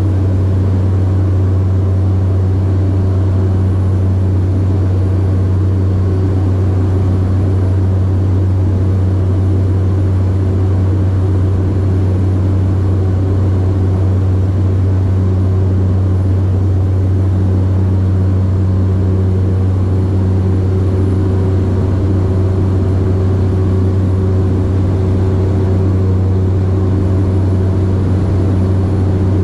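Cabin noise of a Cessna 208 Grand Caravan climbing out after takeoff: its single turboprop engine and propeller make a steady, loud, low drone.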